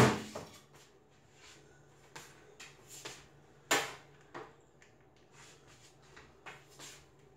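Kitchen handling sounds: a loud knock at the start, a few light clicks, and a sharp clatter a little under four seconds in as a saucepan is handled on an electric stovetop. A low steady hum runs underneath.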